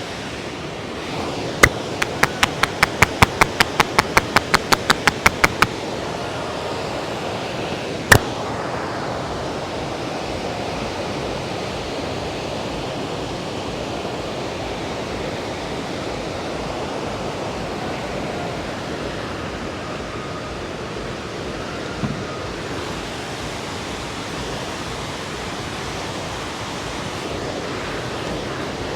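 Steady rush of a river's flowing water. Near the start comes a quick run of about fifteen sharp slaps from the head massage, about four a second. A few seconds later there is one louder, sharp crack.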